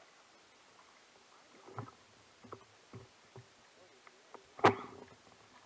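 Knocks and bumps on an inflatable kayak while a fishing rod is worked: several soft knocks, then one loud sharp knock near the end.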